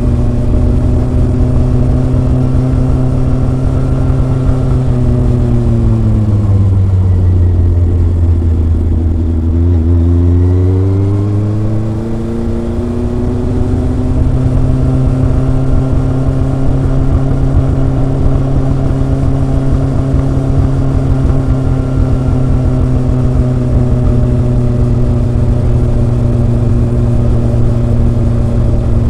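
Kawasaki ZRX inline four-cylinder motorcycle engine and exhaust while riding, a smooth, gentle note. Engine speed holds steady, drops away about five seconds in, climbs back up from about ten seconds in, then settles to a steady cruise again.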